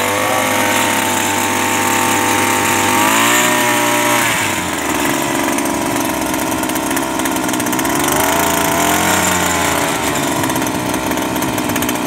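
Small two-stroke gasoline outboard motor running with its propeller in a bucket of water. It is revved up briefly about three seconds in, dropping back about a second later, and revved again near the eight-second mark.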